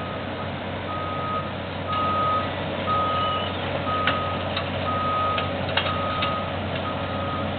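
Heavy-equipment reversing alarm beeping about once a second, each beep about half a second long, over a steady low engine rumble, with a few sharp knocks.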